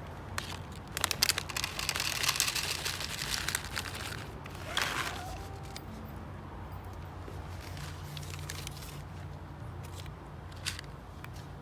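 Crinkling and crunching noises for the first few seconds, then a brief rustle and a few scattered clicks, over a steady low hum.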